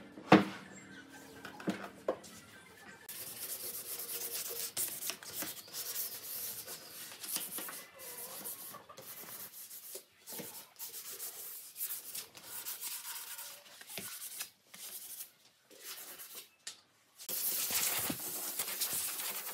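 Sandpaper rubbing in short stretches over the pallet-wood boards of a bench, after a sharp knock of wood just after the start. Near the end a handheld gas torch hisses steadily as it scorches the wood.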